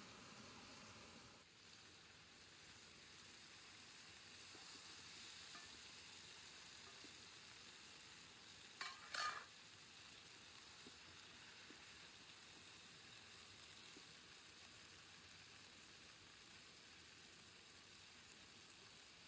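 Faint, steady sizzling of food frying in a pot over a campfire, with a brief double scrape of a utensil being stirred about nine seconds in.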